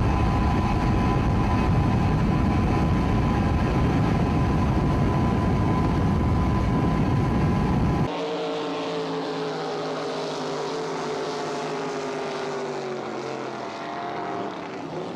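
Speedboat engines on the water. For the first half there is a loud, low, rushing noise of a boat running at speed. After a sudden change about eight seconds in, racing boat engines run with a pitch that falls slowly.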